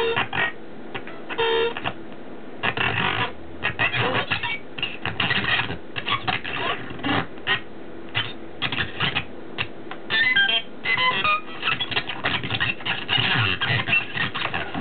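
Circuit-bent Texas Instruments Speak & Spell glitching: stuttering, chopped fragments of synthesized speech and buzzy tones, coming in short repeated bursts.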